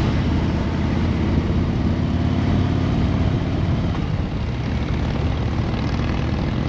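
Harley-Davidson Road Glide's V-twin engine running steadily at cruising speed with road noise, heard from on the motorcycle.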